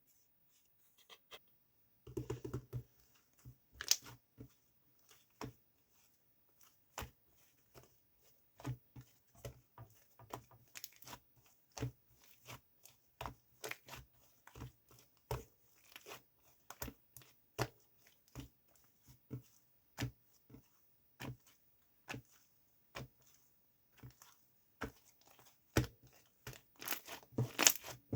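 Slime being squeezed, stretched and poked by hand, making a run of small sharp clicks and pops from trapped air, a few per second, growing denser and louder near the end.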